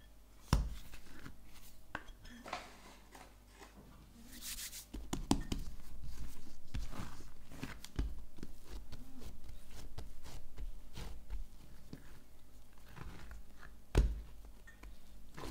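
Risen bread dough being taken out of a glass bowl and pressed and folded by hand on a silicone mat to knock the air out of it: soft handling noises and scattered thumps, with a louder thump about fourteen seconds in.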